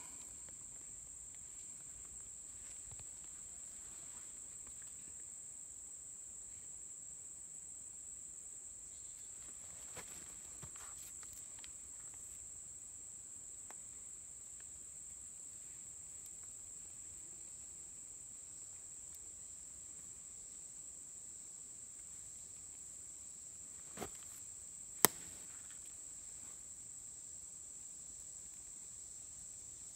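A steady, high-pitched insect chorus that keeps on without a break. A few faint clicks are heard, and one sharp click about 25 seconds in stands out as the loudest sound.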